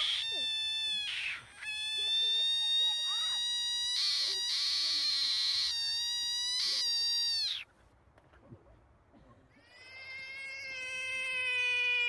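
A frog screaming: three high, squealing calls with short breaks between them, the last two held for a few seconds each and the last dipping in pitch as it ends. After a short pause, a lower, long scream that slowly falls in pitch begins, from an American bullfrog.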